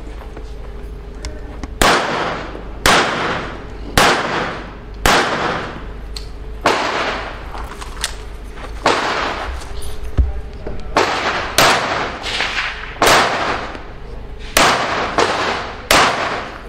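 Pistol fired through a timed dynamic-shooting course: about fourteen sharp shots, roughly one a second with uneven spacing, each followed by a short echoing tail.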